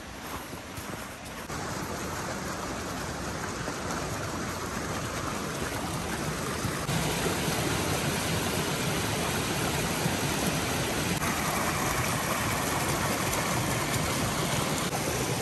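Small stream running steadily through a stone channel, a continuous rush of water that gets louder about a second and a half in and again about seven seconds in.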